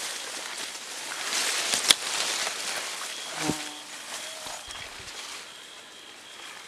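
Leaves and branches rustling as someone pushes through dense undergrowth, with one sharp click about two seconds in. Under it an insect chirps steadily in short, evenly repeated pulses.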